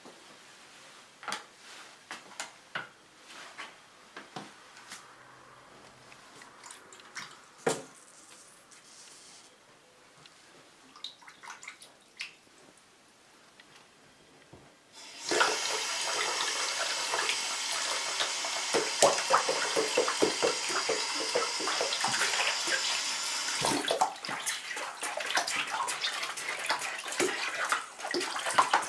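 A bathtub tap is turned on about halfway through, and water pours steadily and loudly into the tub. A few seconds before the end the pouring gives way to a lower, uneven splashing. Before the tap comes on there are only faint scattered clicks.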